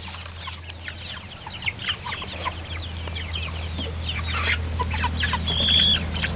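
A coop of young chickens, two-month-old laying pullets and meat birds, clucking and cheeping in many quick short calls. Just before the end one bird gives a longer, steady high call.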